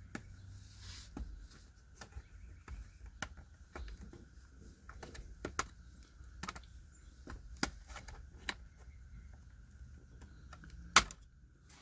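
Plastic steering-wheel trim cover being pried off: a string of small irregular clicks and ticks, with one sharp snap near the end.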